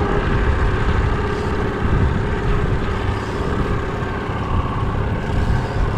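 Outboard kicker motor on a fishing boat running steadily at trolling speed, a continuous low rumble with a faint steady hum.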